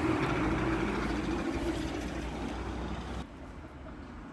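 Road traffic at a street-side bus stop: a motor vehicle's engine and tyre noise that slowly fades as it moves away, then cuts off abruptly about three seconds in.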